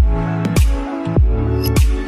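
Background music: an electronic R&B beat with sustained synth chords and a deep kick drum that drops in pitch, hitting about every 0.6 seconds, with no singing.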